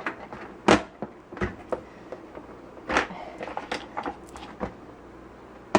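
Hard plastic knocks and clicks, the loudest about a second in, from a collapsible portable washing machine being handled and pulled open to stand up.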